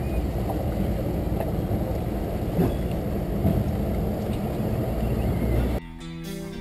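Fishing boat running under power: a steady rush of engine, hull and wind noise. It cuts off abruptly near the end as guitar music begins.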